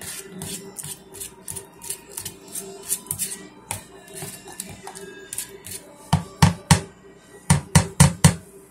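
Irregular sharp clicks and taps, with a run of louder knocks about six to eight seconds in, over faint background music.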